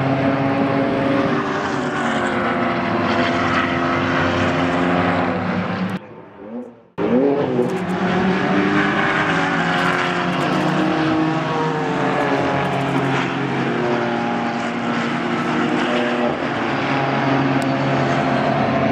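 Several GT4 race car engines running hard together as a pack of cars drives through a corner and accelerates away, their pitches overlapping and shifting. The sound cuts out briefly about six seconds in and comes back with an engine revving up.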